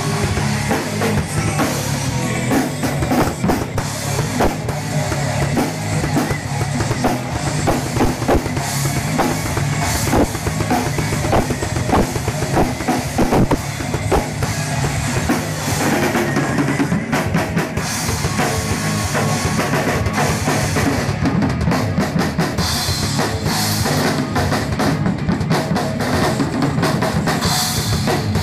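Drum kit played at a steady, busy pace: bass drum, snare hits and cymbals all going together.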